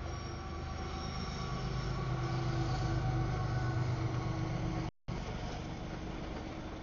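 Freight train's tank cars and covered hoppers rolling past at a grade crossing: a steady rumble of wheels on rail, with a faint high-pitched wheel squeal in the first few seconds. The audio cuts out for a split second about five seconds in.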